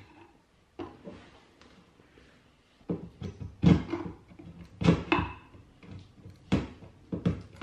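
A metal scraper blade scraping and knocking against a painted wooden stair, in about ten short, sharp, irregular strokes, as old paint is scraped off.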